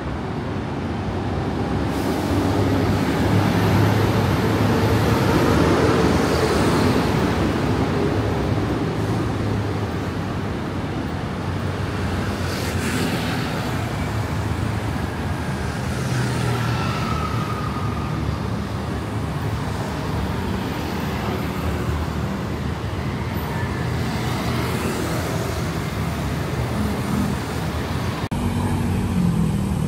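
Steady city road traffic, with a swell for a few seconds shortly after the start as a vehicle passes close.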